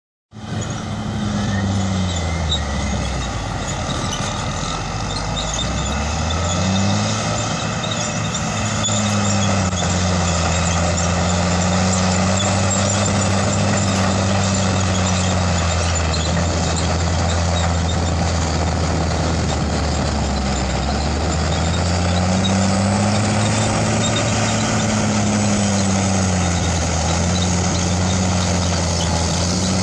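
Heavy diesel engine of a four-wheel-drive articulated tractor running steadily under load while towing grader scrapers through soil. Its deep engine tone falls and climbs back twice as the machines move.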